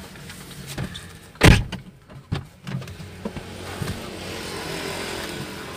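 Disposable face mask rustling and hands brushing against the microphone inside a car, with one loud thump about a second and a half in and a few lighter clicks around it. A steady low hum fills the second half.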